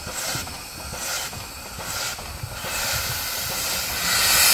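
Steam locomotive chuffing: evenly spaced puffs of exhaust steam, about one a second. Near the end a loud, steady hiss of escaping steam takes over.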